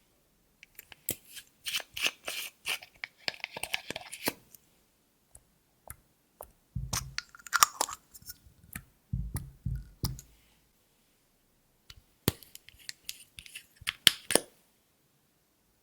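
Clear slime being worked by hand, giving three bouts of sticky crackling clicks and pops. There are a few dull thumps in the middle bout.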